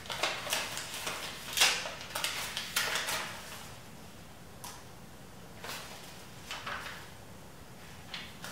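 Paper sheet being unfolded and handled: a quick run of crinkles and rustles over the first three seconds or so, then a few scattered rustles.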